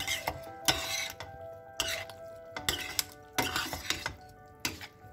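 A metal spoon scraping and clinking against a metal frying pan while tossing spaghetti carbonara, in strokes about once a second.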